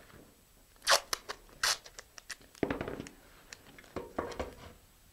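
Rustling and crinkling as a nylon parachute and flat shock cord are handled, with sharp scratchy bursts about one and two seconds in, the first the loudest.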